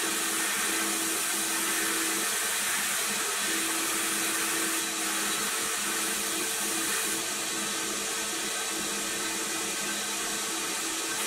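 Abrasive blasting in a blast cabinet: a steady hiss of compressed air and grit from the blast gun, stripping old paint and rust off a pressed-steel toy car body, with a faint low hum underneath.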